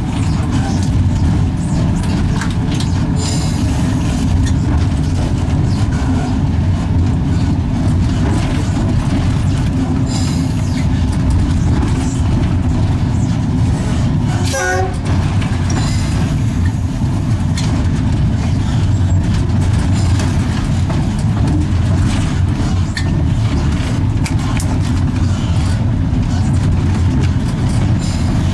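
EL2 electric locomotive running along the track, heard from its cab: a steady, loud low rumble, with a few faint high squeaks and a brief wavering tone about halfway through.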